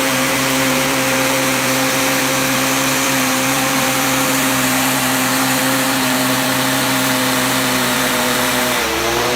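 High-pressure washer running steadily: a motor hum under a loud hiss of spray. A little before the end the motor's pitch dips briefly, then recovers.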